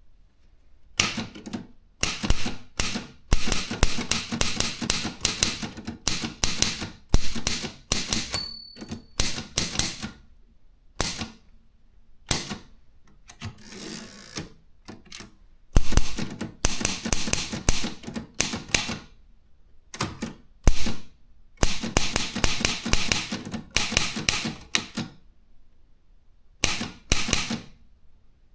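Consul 232 typewriter being typed on: fast runs of key strikes, type bars hitting the platen, broken by short pauses. It is quiet for about the first second.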